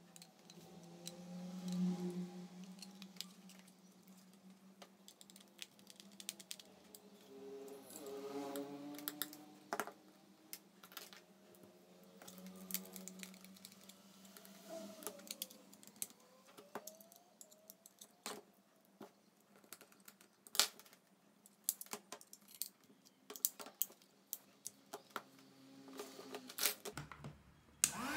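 Plastic housing of a small hot air gun being closed up and screwed together: irregular sharp clicks and taps of the plastic shell and a screwdriver.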